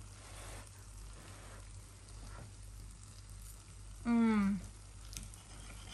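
A woman chewing a bite of chicken gives a short, closed-mouth appreciative "mmm" about four seconds in, falling in pitch. Under it is a steady faint hiss.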